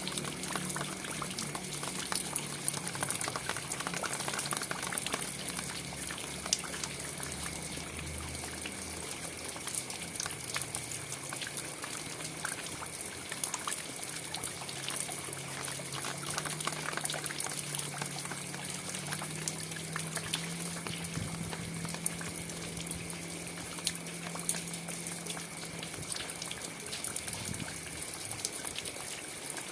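Steady rain falling, a continuous hiss dotted with many individual drop hits, with a faint low hum underneath.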